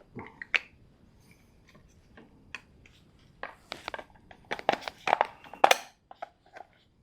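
Irregular crunching and clicking of things being handled, sparse at first and loudest from about three and a half to six seconds in.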